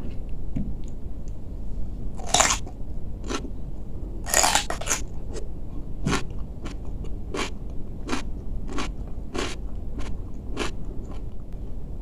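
Raw cucumber being bitten and chewed with crunches: two loud bites a couple of seconds apart, then steady crunching chews about every two-thirds of a second.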